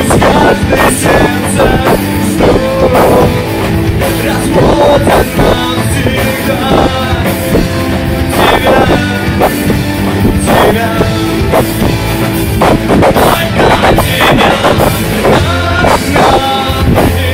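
Loud rock song with a drum kit and singing.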